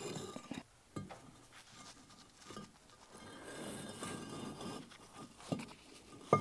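A firebrick being lifted out, turned and set back into the oven's floor course: quiet scraping and rubbing of brick on brick and mortar, with a few light knocks, the sharpest near the end as it is set down.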